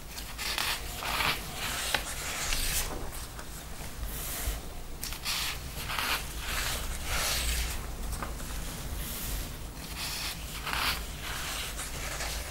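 Sheets of paper sliding and rustling under gloved hands, in a string of separate swishes and rubs as each top sheet is pushed aside to show the one beneath.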